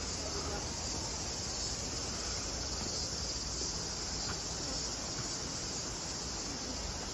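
A chorus of insects in the forest, a steady high-pitched drone with no pauses.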